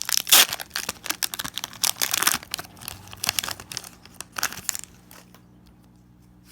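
Foil Pokémon booster pack wrapper being torn open and crinkled by hand, with the loudest rips about a third of a second in and again around two seconds, dying down after about five seconds.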